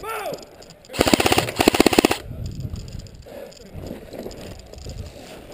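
Airsoft rifle firing one rapid full-auto burst, about a second in, lasting just over a second, with evenly spaced shots.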